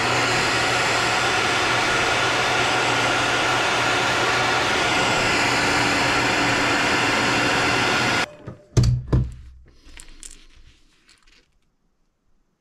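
Hair dryer blowing steadily to dry fresh airbrush paint on a crankbait, switched off abruptly about eight seconds in, followed by a couple of knocks.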